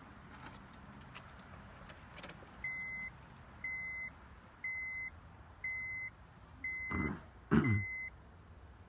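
An electronic beeper sounds six short, identical high beeps about a second apart. Two louder sudden sounds come near the end, over the last beeps.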